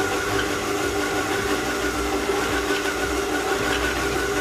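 Electric mixer motor running steadily with a constant whine, mixing a soft bread dough of flour and double cream.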